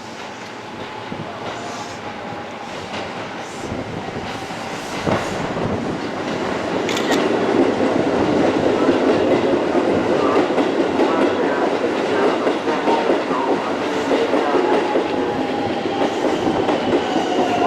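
Keisei Line electric train pulling out of the station, its running noise building up over the first eight seconds or so and then holding steady, with wheels clicking over rail joints and a thin motor whine.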